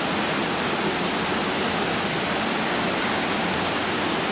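Steady, even rushing noise of an indoor swimming-pool hall, like running water, with no distinct strokes or splashes standing out.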